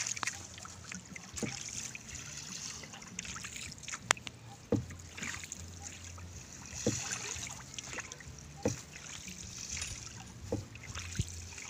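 Tilapia gill net being paid out hand over hand into the water: water trickling and dripping off the mesh, with a sharp knock or click every second or two.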